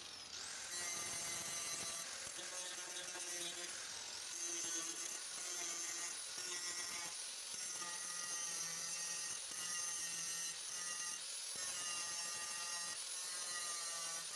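Angle grinder grinding on a car's welded steel body panel: a steady high whine over a continuous abrasive rasp.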